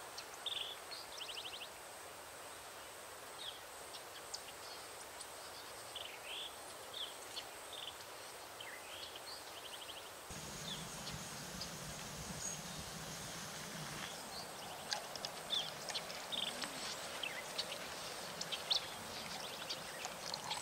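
Small birds chirping and calling at intervals over a faint outdoor background hush. About halfway through the background becomes fuller, with a low rumble added.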